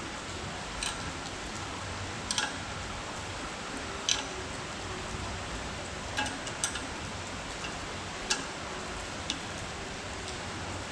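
Steady rain hiss from a heavy downpour, with scattered sharp clicks and taps about every one to two seconds.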